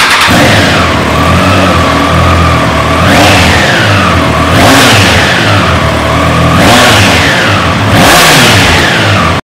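Triumph Trident 660's inline three-cylinder engine revved while the bike stands still: about five sharp throttle blips, each climbing quickly and sinking slowly back toward idle.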